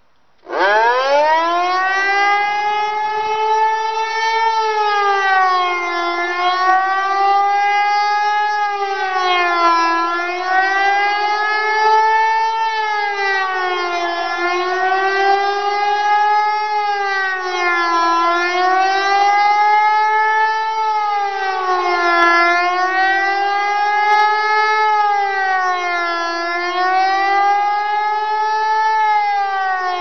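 HLS573 pneumatic high-performance siren sounding the Austrian "Alarm" signal. About half a second in it starts with a steep rise in pitch, then holds a loud wail that rises and falls smoothly about every two and a half seconds.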